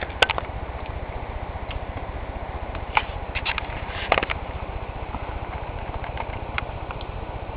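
Wind rumbling steadily on the camera microphone, with a few scattered clicks and knocks of handling.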